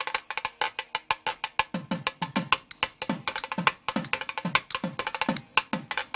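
Fast drumming: a quick run of sharp, dry strokes, with deep drum strokes that drop in pitch joining in about two seconds in at roughly three a second.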